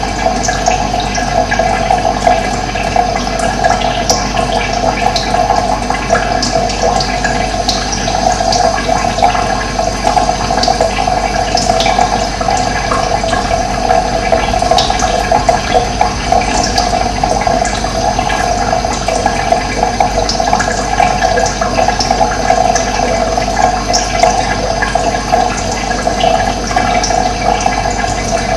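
Steady rush of flowing water, with short, high bird chirps scattered through it.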